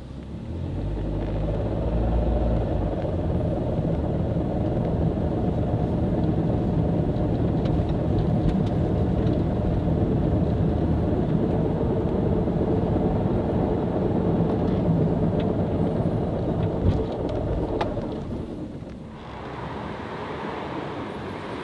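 2011 Nissan Cube being driven, a steady rumble and drone that eases off near the end. The car came in for loud noise while driving, which the shop traces to a failing bearing inside its CVT transmission.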